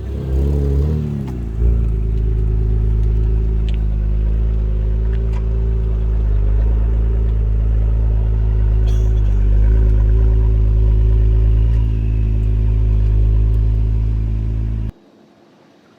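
2017 Acura NSX's twin-turbo V6 revving up briefly, then running at a steady cruise with an even drone. The sound cuts off abruptly near the end.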